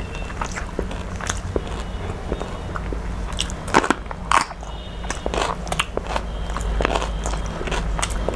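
A woman chewing a mouthful of rice and fish close to the microphone: a run of wet smacks and crackly crunches, the loudest a pair about four seconds in, over a steady low hum.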